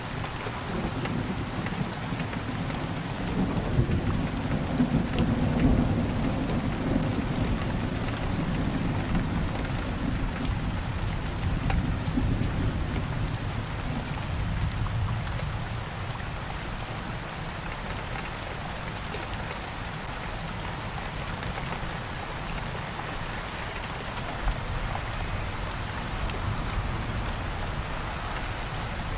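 Heavy rain pattering steadily on window glass. A low rolling rumble of thunder swells through the first half and dies away.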